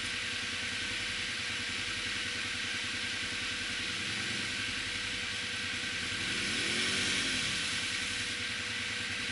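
ATV engines running steadily, with the quad in the mud rut revving up and back down once about two-thirds of the way through.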